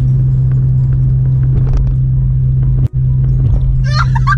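Steady low drone of a moving car heard inside the cabin, with faint music under it. The sound drops out for an instant about three seconds in, and a singing voice comes in near the end.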